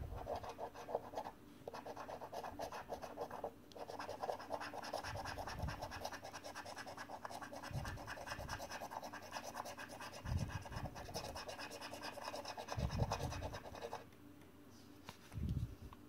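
A £2 coin scratching the silver latex off a scratchcard: rapid rasping strokes with brief pauses and a few soft low thumps. The scratching stops about two seconds before the end.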